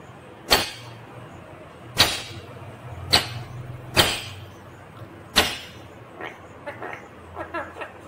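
Indian ringneck parrot knocking its beak against a metal curtain rod: five sharp taps about a second apart, then a few soft short chirps near the end.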